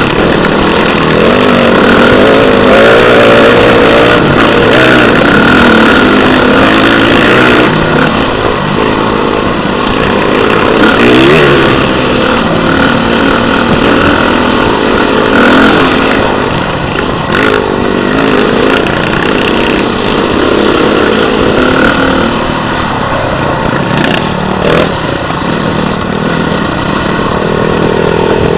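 Beta RR 450 enduro motorcycle's single-cylinder four-stroke engine, close up, revving up and down continuously, its pitch rising and falling with the throttle.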